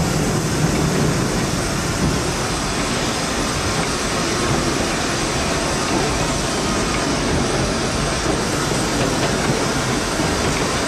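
LNER Peppercorn A1 Pacific steam locomotive 60163 Tornado, a three-cylinder engine, running along, heard from inside its cab as a steady rumble and clatter.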